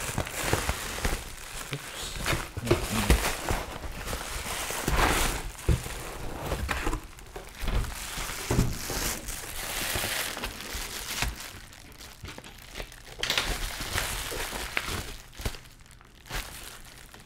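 Foil-lined bubble insulation liner crinkling and rustling as it is pulled out of a cardboard shipping box and handled, with a few sharp knocks of packaging; the rustling eases off near the end.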